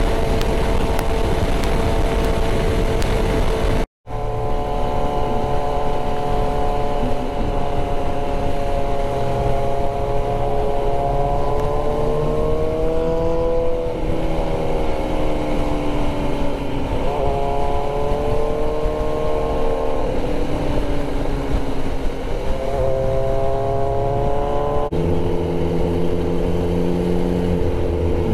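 Can-Am motorcycle engine running with loud wind rush, first steady at highway speed. After a brief dropout its pitch climbs and falls back several times, as with acceleration and gear changes. The sound changes abruptly near the end.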